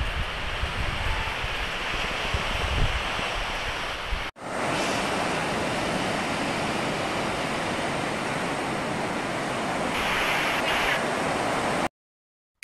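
Ocean surf rushing onto a beach, with wind buffeting the microphone in low thumps. About four seconds in there is a cut to a steadier wash of waves around pier pilings, which stops abruptly near the end.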